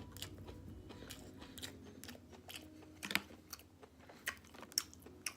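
Close-miked chewing of a hot-sauce-dipped fried chicken strip: wet mouth clicks and smacks with a few sharper crunches, the loudest about three seconds in.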